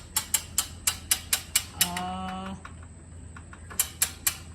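A ratchet mechanism being worked, clicking sharply about four times a second in two runs with a pause in the middle. A short held vocal sound is heard during the pause.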